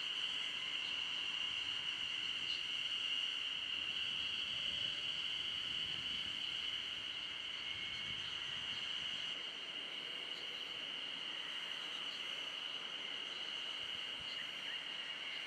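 Steady, high-pitched drone of insects singing. Under it, a faint low rumble, fitting a KiHa 40 diesel railcar pulling away, fades out about nine seconds in.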